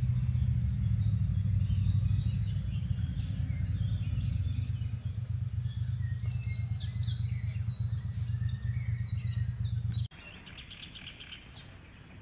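Small songbirds chirping and trilling in woodland, many short calls overlapping, over a steady low rumble that cuts off suddenly about ten seconds in, leaving only the birdsong.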